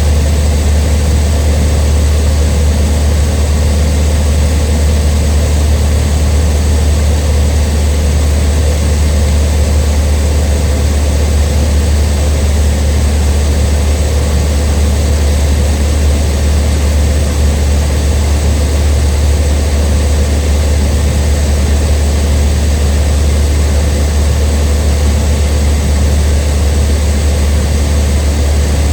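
Cessna 152's four-cylinder Lycoming engine and propeller running steadily in flight: a loud, even drone with a deep low hum and no change in pitch.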